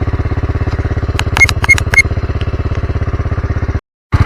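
Small vehicle engine running steadily with an even, rapid pulse, with a few sharp metallic clicks or rattles about a second and a half in. The sound cuts off abruptly near the end.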